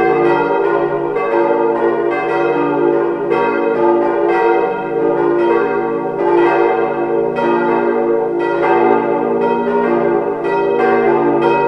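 Four swinging hard-cast-iron church bells, cast by Weule in 1949 with strike notes D, F, G and B-flat, ringing together in a continuous overlapping peal of several strikes a second. Their strike tones sit noticeably out of line with one another, a badly distorted strike-tone line in these ageing iron bells.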